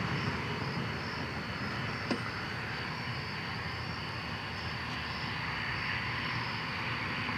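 Insects chirping in a steady high drone with a faint even pulse, over a low steady background rumble; a single sharp click about two seconds in.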